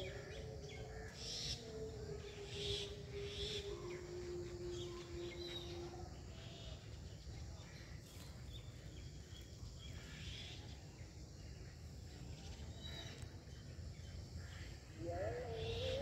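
Faint bird chirps over a steady outdoor background rumble, with a low held tone that steps down in pitch in the first few seconds and comes back near the end.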